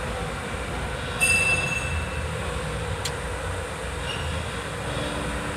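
Chinese EFI engine running with a steady low rumble. A short high squeal comes about a second in, and a sharp click about three seconds in.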